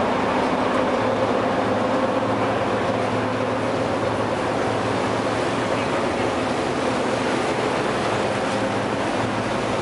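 River cruise boat's engine running steadily under way: a constant low drone with a few steady hum tones, under an even rush of wind and water noise.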